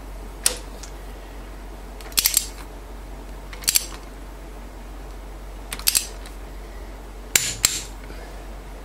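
Sharp metallic clicks from a socket and bar on the cylinder-head bolts of a Mitsubishi diesel tractor engine, in about five short clusters a second or two apart, as the head bolts are loosened one after another.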